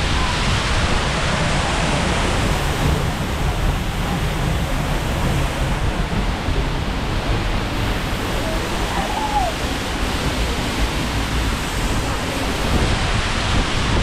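Seljalandsfoss, a waterfall dropping about 60 metres, pouring down close by: a loud, steady rush of falling water.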